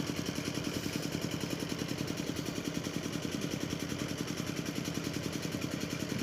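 Small engine idling steadily nearby, with an even, rapid pulse.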